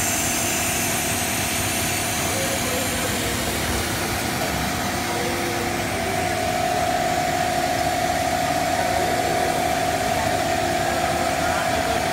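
Steady machinery noise of a cast stretch film extrusion line running. About halfway through, a steady mid-pitched whine comes in on top and holds.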